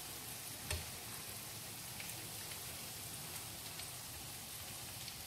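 Gram-flour pakoras deep-frying in hot oil, a steady sizzling hiss, with one light knock about 0.7 s in.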